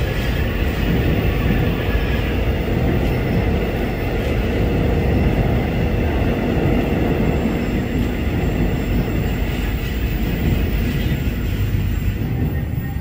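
Korail class 341000 electric multiple-unit train pulling out of the platform, its cars rolling past over the rails with a steady rumble.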